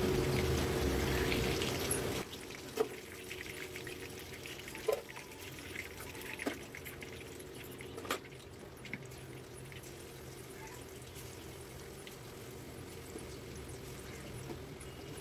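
Battered chicken pieces deep-frying in hot oil in an aluminium kadai: a steady sizzle, louder for the first two seconds and then dropping suddenly to a softer sizzle. A few sharp taps are heard in the middle.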